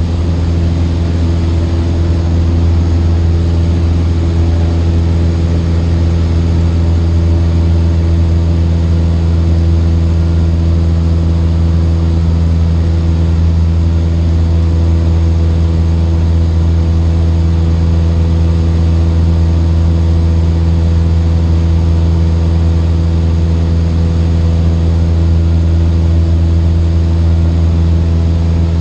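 Cessna 152's four-cylinder Lycoming engine and propeller droning steadily at a constant power setting, heard from inside the cockpit as a loud, even, low hum with no change in pitch.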